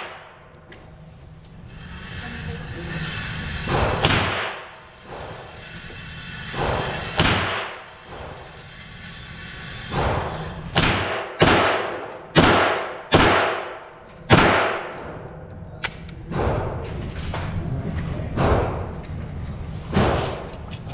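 Gunshots ringing with echo in an indoor shooting range, about fifteen in all. Single shots come a second or more apart, with a quick string of about six roughly half a second apart around the middle.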